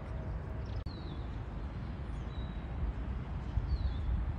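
Outdoor ambience: a low, rumbling noise with a few short, high, falling bird chirps.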